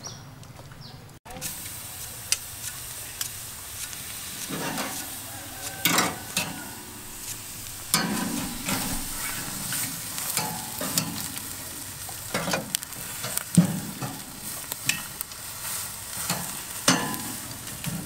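Beef sizzling on the metal grate of a charcoal grill, starting suddenly about a second in, with sharp clacks of metal tongs against the grate now and then.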